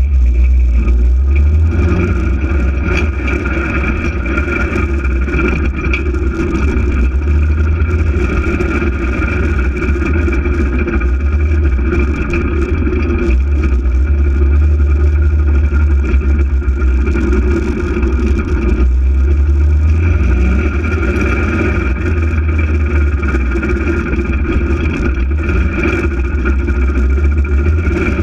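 Polaris RZR 800 side-by-side's twin-cylinder engine running steadily while it drives, with a heavy low rumble.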